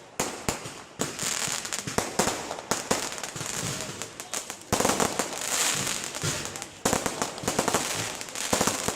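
Aerial fireworks display: a dense run of shell bursts and crackling. Louder surges of bangs begin about a second in, near five seconds and near seven seconds.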